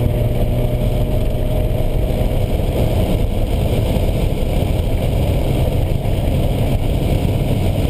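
Porsche 944's 2.5-litre inline-four engine running, heard from inside the cabin. It holds a steady note for about the first three seconds, then the sound turns rougher and less even.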